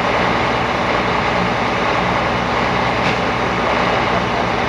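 Diesel engine of a MAN heavy recovery truck running steadily, loaded by the hydraulic crane that is lifting the overturned lorry.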